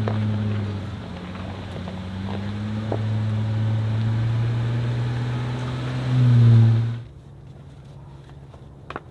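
Jeep Gladiator pickup's engine running at low speed as the truck creeps over a gravel river bar. The note dips and rises slightly and swells briefly near the end, then the sound cuts off abruptly about seven seconds in.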